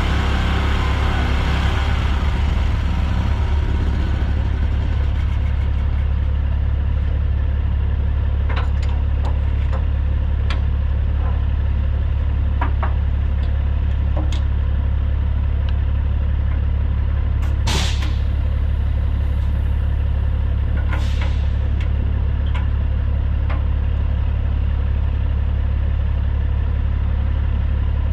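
Heavy diesel engine idling steadily, with a few light metallic clicks and two brief bursts of hiss a few seconds apart.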